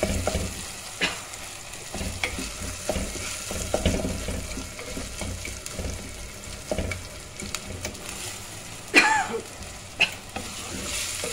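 A wooden spatula stirs and scrapes tomato and onion masala frying in oil in a clay pot, over steady sizzling. The tomatoes are softening and the oil is starting to separate. About nine seconds in comes the loudest sound, a sharp scrape with a falling squeal.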